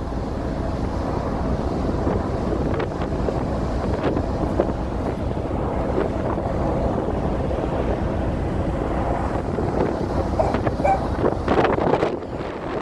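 Wind buffeting the microphone on the open deck of a car ferry under way, over the steady low drone of the ship and the rush of its wake, with stronger gusts near the end.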